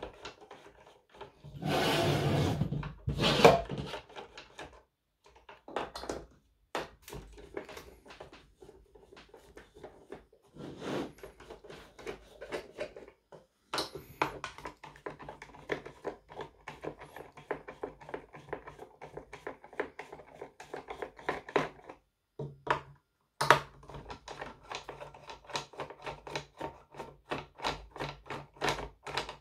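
Hand screwdriver unscrewing long screws from the plastic base of a portable power station: rapid small clicks and creaks as the screws turn in their threads. A louder scraping noise comes about two seconds in.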